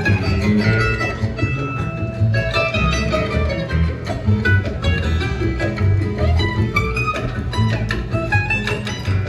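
Acoustic string band playing an instrumental break: plucked strings pick a busy melody over steady, pulsing bass notes.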